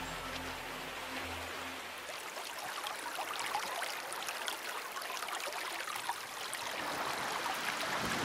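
Shallow creek water running and trickling over stones. A music bed fades out in the first two seconds.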